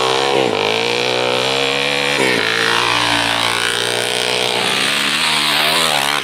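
Off-road enduro motorcycle engine at full throttle as the bike comes along the dirt track, its note dropping sharply about half a second in and again about two and a half seconds in and climbing again after each, as it changes up through the gears. The sound cuts off suddenly at the end.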